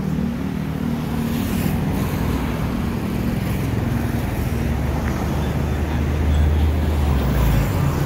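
Road traffic: vehicle engines running, a steady hum at first and a deeper rumble swelling in the second half.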